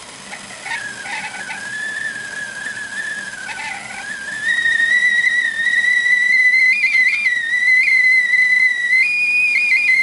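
KitchenAid 2.0-quart stovetop kettle whistling as steam from the rolling boil forces through its whistle. The whistle begins about a second in as one tone that slowly rises in pitch, grows much louder about halfway through, and wavers in small pitch steps near the end.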